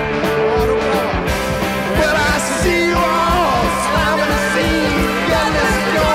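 Rock music with a steady beat and a singing voice.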